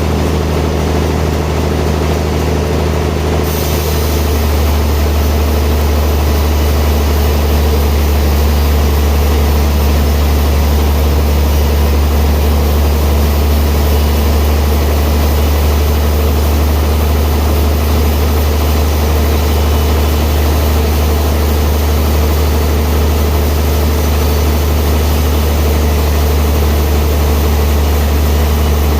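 Sawmill machinery running with a steady low hum. About three and a half seconds in, a fuller, hissier sound joins it and keeps on.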